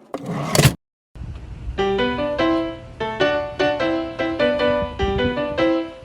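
Background music: a short noisy burst, a moment's silence, then a keyboard playing a melody of notes in a steady rhythm over a bass line.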